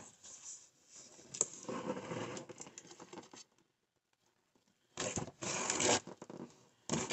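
Cardboard box of a dollhouse kit being opened by hand: the lid rubbing and scraping against the box as it is worked loose, with a louder scrape about five seconds in and a short one near the end.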